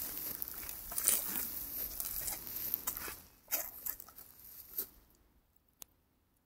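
Rustling, crackling noise with scattered sharp crackles that dies away about five seconds in, followed by a single click.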